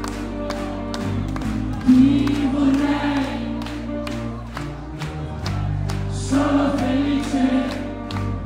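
Italian indie rock band playing live through a club PA: held guitar chords over a steady beat of about four strokes a second, with many voices singing a line together twice, the crowd singing along.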